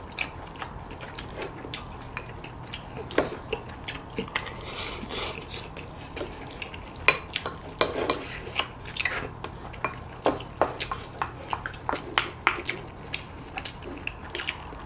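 Spoons and chopsticks clicking and scraping against bowls as ramyeon is eaten, many short sharp clicks at an uneven pace with a few brief scrapes.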